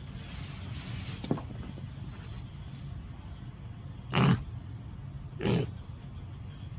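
Piglet grunting twice, two short loud calls about a second apart, over a steady low hum.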